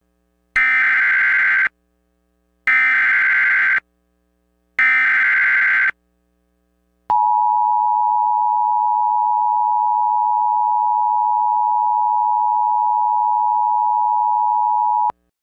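Emergency Alert System header tones: three one-second bursts of warbling data tones, then a steady attention tone held for about eight seconds that cuts off sharply.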